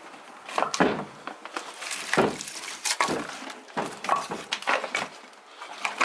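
Split firewood logs, some with birch bark, knocking and clattering against each other as they are pulled from a stacked pile and loaded into a fabric carry bag: a series of sharp wooden knocks, roughly one a second.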